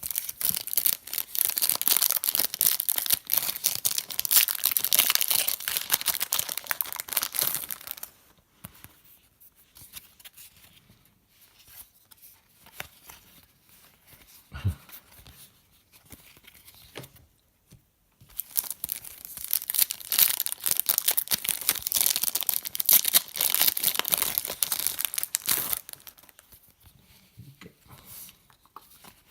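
Trading card pack wrappers being torn open and crinkled, in two long spells of crackling, with quieter handling of cards in between.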